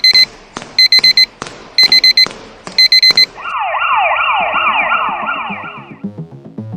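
Electronic outro music: clusters of short high beeps about once a second, then a siren-like wailing synth sweep for a few seconds, giving way to a low pulsing beat near the end.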